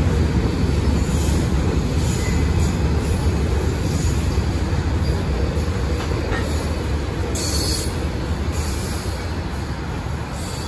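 A train running on the rails: a steady low rumble of wheels and cars, easing slightly near the end.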